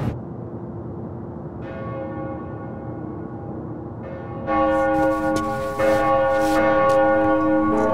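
Church bells ringing. A softer stroke comes about one and a half seconds in, then louder strikes about four and a half and six seconds in, their tones ringing on and overlapping.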